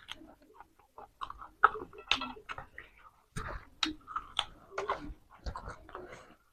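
A person chewing and biting food, with irregular crunches and wet mouth clicks.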